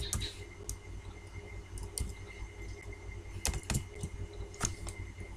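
A few scattered keystrokes on a computer keyboard, single sharp key taps spaced about a second apart, over a low steady background hum.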